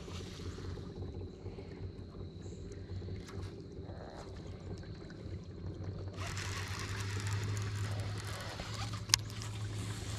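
Bass boat's electric trolling motor humming steadily, with water wash that swells to a louder hiss about six seconds in, and one sharp click near the end.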